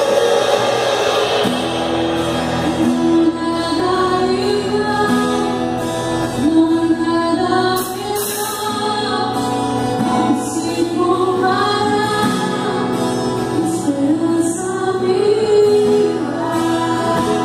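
A woman sings a Christian worship song into a microphone, accompanied by an acoustic guitar; her singing comes in about a second and a half in over the held accompaniment chords.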